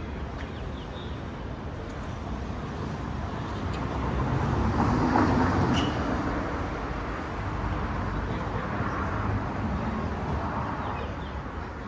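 City street traffic noise, with a vehicle passing that swells to its loudest about five seconds in and then fades.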